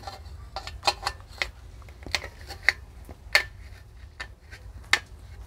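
Aviation snips cutting a thin steel tabica drywall edge profile in short bites: a run of irregular sharp clicks and snips as the blades close on the metal, the loudest a little past two and three seconds in.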